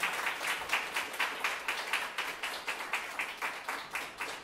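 A small audience clapping, with individual claps standing out, thinning slightly near the end.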